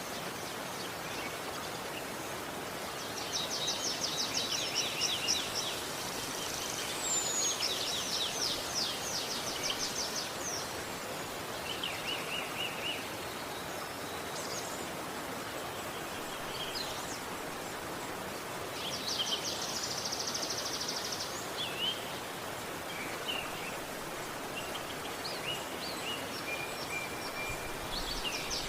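River water flowing with a steady rush, with birds singing over it in several bouts of rapid, high trills and chirps.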